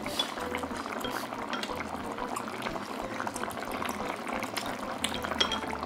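Braised beef short ribs (galbi-jjim) with glass noodles bubbling steadily in a pan on an electric multi-grill, a continuous crackly simmer. Near the end, soju is poured from a bottle into a glass.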